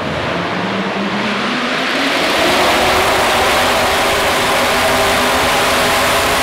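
Small-block V8 of a 4x4 pulling truck at high revs while it drags the pulling sled. The engine note rises over the first couple of seconds, then it gets louder and holds at full throttle.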